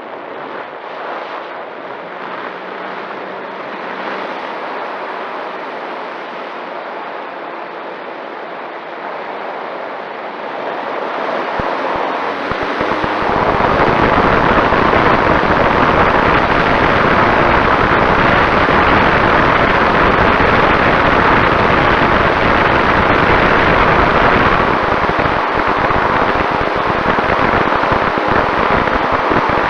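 Steady rushing noise with wind buffeting the microphone, growing louder and heavier partway through.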